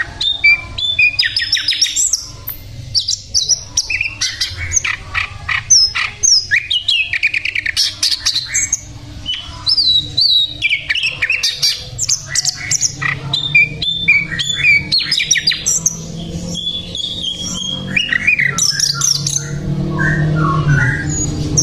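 Sikatan londo, a small songbird of the flycatcher kind, singing vigorously and without a break: a fast, varied song of high whistled notes mixed with quick rattling chatter.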